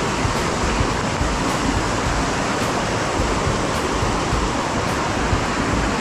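Steady, unbroken rush of flowing water.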